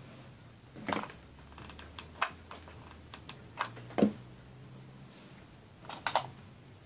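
Handling noises from tabletop craft work: a handful of light taps and clicks, loudest about four seconds in and a quick double tap near the end, as rope is pressed and glued around a small porcelain wax melt burner.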